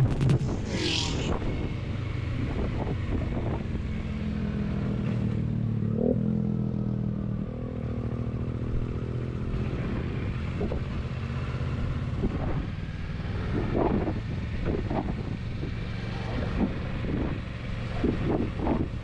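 Kawasaki Versys 650 parallel-twin engine running while the motorcycle is ridden, its pitch rising and falling with the throttle, over wind noise on the microphone.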